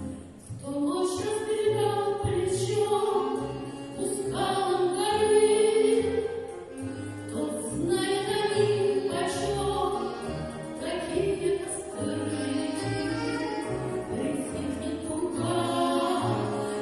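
A woman singing a song in an academic (classical) vocal style over instrumental accompaniment with a stepping bass line.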